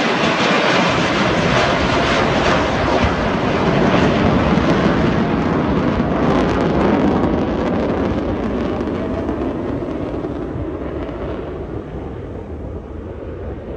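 F-35 Lightning II fighter's single afterburning turbofan engine as the jet makes a slow, gear-down pass: a loud, deep rushing jet noise that swells to its peak about four seconds in, then fades as the jet moves away.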